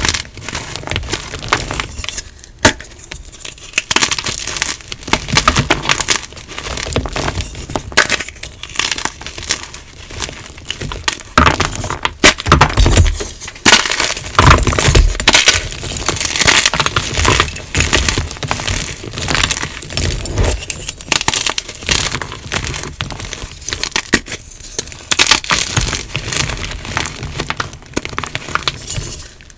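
Hard, dyed gym chalk being crushed and crumbled, a continuous run of sharp crunching and cracking with loud snaps here and there.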